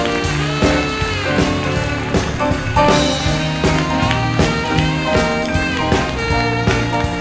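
Live house band playing an upbeat walk-on tune with a steady beat: drum kit and keyboard, jazz-swing style.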